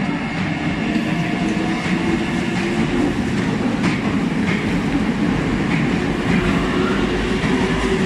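Meitetsu 2200 series electric train pulling out of the station and running past on the platform track: steady rolling noise of wheels on rail with a faint motor tone.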